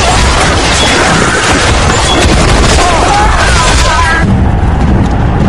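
Film battle sound mix: a dense din of clashing and shouting men, which about four seconds in gives way to a deep, low boom of an explosion.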